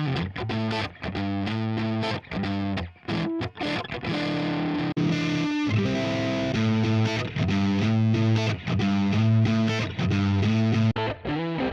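Electric guitar played through a distorted drive preset on an IK Multimedia TONEX MAX amp-modelling pedal: short chord stabs and riffs with brief stops between them, and one chord held a little longer about four seconds in.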